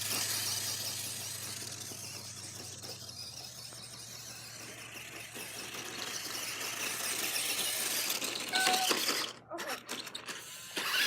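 RC car's drive running with a high whirring noise that fades as it moves away and grows louder again as it comes back, then breaks into scattered clicks and knocks near the end.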